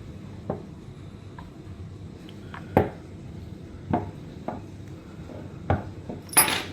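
A steel screw clicking and tapping against an aluminium hinge jig as it is tried in different holes: a handful of separate sharp metallic clicks, with a short scraping rustle near the end.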